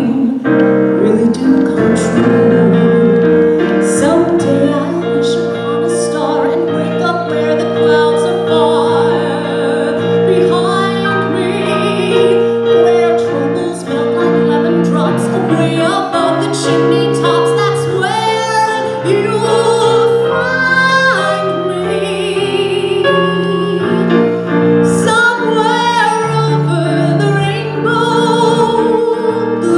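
A woman singing with piano accompaniment, holding long notes with vibrato.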